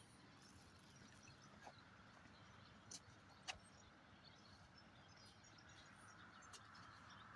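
Near silence: faint outdoor ambience, with two faint clicks about three seconds in.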